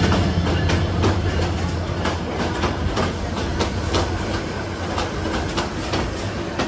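Passenger train passing on the adjacent track: a steady run of clickety-clack as its wheels cross the rail joints, with a low rumble easing off in the first second.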